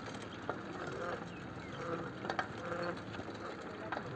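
Bicycle being ridden along a road: irregular clicks and rattles from the bike over a steady rushing noise.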